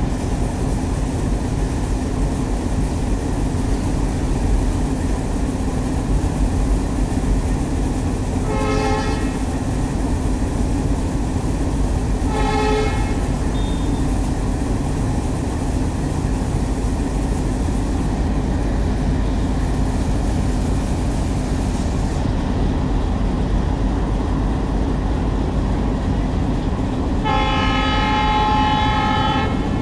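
Indian Railways diesel locomotive's engine running with a steady heavy drone. Its horn sounds two short toots about 9 and 12 seconds in, then a long blast near the end.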